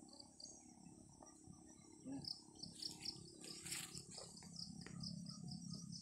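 Insects chirping: a steady high-pitched trill with an evenly repeating, pulsing chirp below it. A few brief light rustles or clicks come in the middle.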